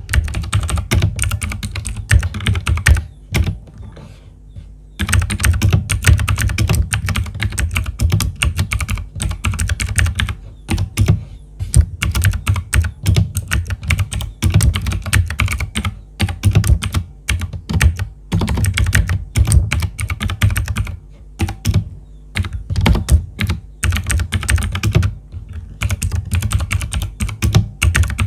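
Typing on a T-Dagger TGK317 mechanical keyboard with clicky Outemu Blue switches: rapid runs of sharp key clicks, with a pause of about two seconds a few seconds in.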